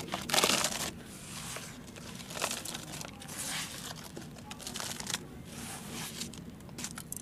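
Handfuls of loose, dry brown soil being scooped and poured into a plastic tub, a grainy rustling and pattering in repeated swishes. The loudest rush comes about half a second in, as the first handful lands in the empty tub.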